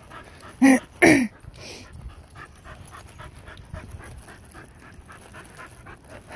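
A dog panting in quick, even breaths, after two short loud barks about a second in.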